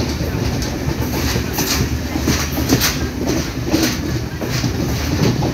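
A train heard from on board: a steady low rumble of the coach running on the rails, with irregular sharp clicks from the wheels passing over rail joints.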